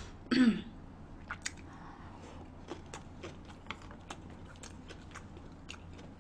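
A person chewing food close to the microphone: scattered small mouth clicks at irregular intervals, with a brief hummed "mm" about half a second in.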